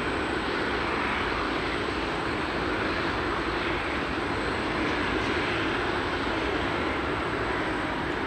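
Hawaiian Airlines Airbus A330-200 on final approach with gear down, its twin Rolls-Royce Trent 700 turbofans making a steady jet rumble and rush.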